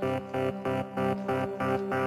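Electronic background music with a steady pulsing beat of synth chords, about three to four pulses a second.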